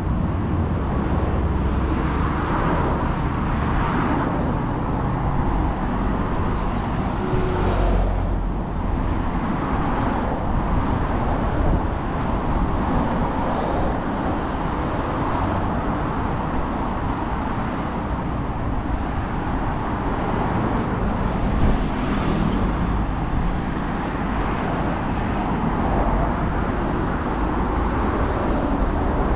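Steady road traffic: a continuous stream of vehicles, with several swelling up and fading as they pass close by.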